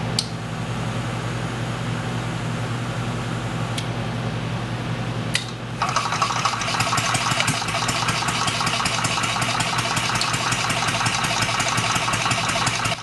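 A few sharp switch clicks over a steady low hum, then about six seconds in the scratch-built 155cc four-stroke single-cylinder engine starts and runs with a fast, even clatter.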